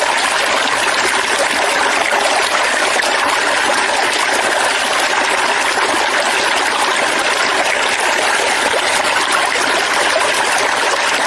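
Steady flowing water, an even, unbroken rush.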